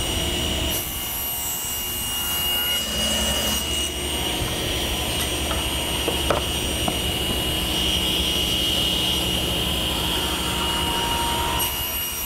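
Power saw running steadily while cutting Baltic birch plywood side pieces to length, with a constant high whine and one short knock about six seconds in.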